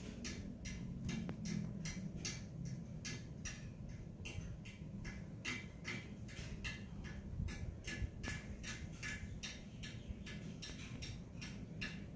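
A steady, fast ticking, about three ticks a second, over a low rumble.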